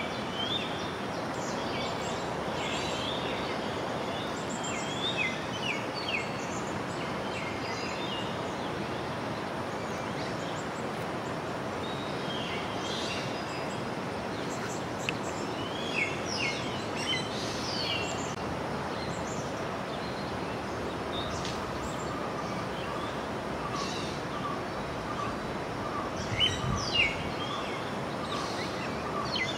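Steady rush of flowing river water with many birds chirping over it, and a couple of louder low thuds near the end.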